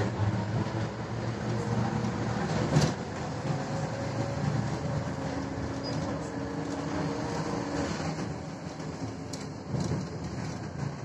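Interior of a 1989 Ikarus 280 articulated bus under way: its Rába D10 diesel engine and drivetrain run with a steady hum and faint whining tones. One sharp knock comes about three seconds in.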